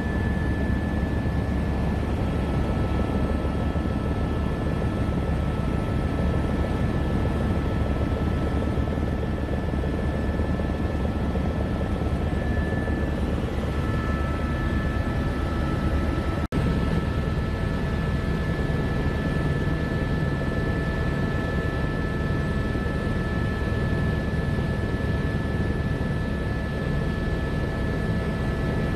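Helicopter in flight heard from inside the cabin: a steady, loud drone of rotor and engine with two steady high-pitched whines over it. The sound cuts out for a moment about sixteen seconds in.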